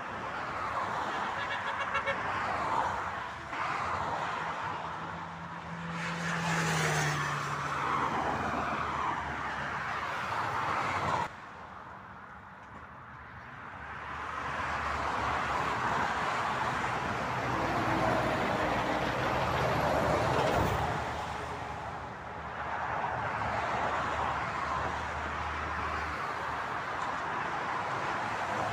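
Motorway traffic: cars and trucks passing one after another, the road noise swelling and fading as each goes by. About seven seconds in, a passing vehicle's engine tone drops in pitch. The noise falls off abruptly about eleven seconds in, then builds again.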